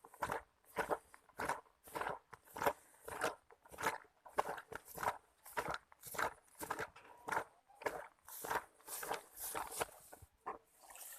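Footsteps walking through dry undergrowth, an even crunch at about two steps a second.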